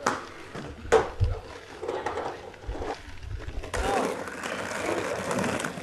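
Roller skate wheels on paving: two sharp clacks, one at the start and one about a second in, then a low rolling rumble. Near four seconds the sound changes abruptly to open-air hiss with indistinct voices.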